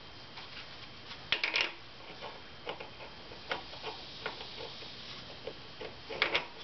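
Light metallic clicks at an irregular pace, about two a second, with a louder quick cluster about a second and a half in and again near the end: the splined compensator shaft of a Harley-Davidson primary drive being turned by hand and worked onto its splines.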